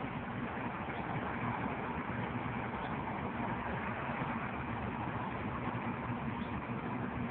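Steady hum of a car's engine and the surrounding traffic, heard from inside the car's cabin in city traffic.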